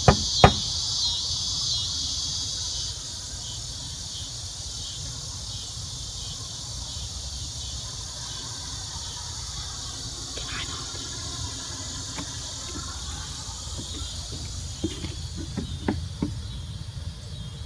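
A single knock on a wooden door right at the start, the last of a few knocks. Insects chirring in a rapid high trill until about three seconds in, then a low steady rumble with a few faint taps near the end.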